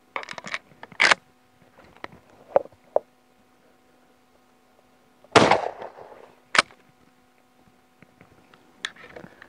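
A 12-gauge Hatsan Escort AimGuard pump-action shotgun fires a single shot about five seconds in, a sudden bang with a short ringing tail. Before it come sharp metallic clicks and clacks as the gun is handled and the action worked. About a second after the shot there is another sharp clack.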